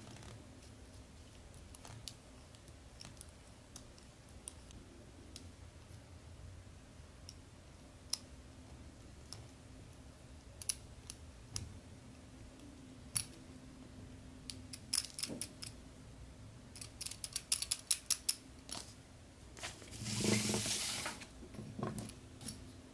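Small metallic clicks and ticks as a thin drill bit in a hand pin vise is worked through a small metal part held in the fingers, scattered at first, then a quick run of clicks, followed by a brief burst of rustling noise near the end.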